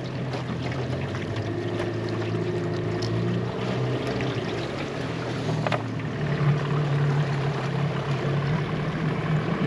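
Yamaha 8 hp tiller outboard motor running steadily on a small aluminium dinghy, its note getting louder about six and a half seconds in.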